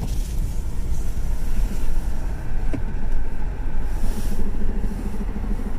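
Honda Accord coasting slowly off the gas with a steady low noise from a front wheel, worst at low speed; the cause turns out to be a wheel with loose lug nuts. A short click about two and three-quarter seconds in.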